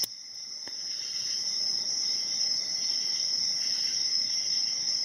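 Steady high-pitched chirring of crickets, with a couple of faint clicks near the start.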